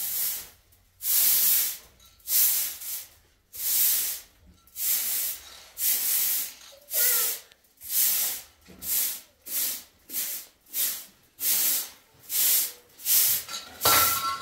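Broom sweeping a dusty cement floor in quick, regular strokes, a short swish about every two-thirds of a second.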